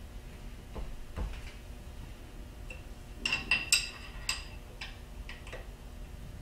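Light metallic clicks and clinks of a hand tool working on the steel handwheel end of a Bridgeport milling machine's X-axis table as it is taken apart, with a quick run of sharper, ringing clinks a little past the middle.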